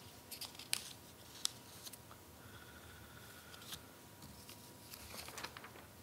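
Quiet room with a few faint, sharp clicks and rustles of hands handling things at a lectern, over a faint steady hum.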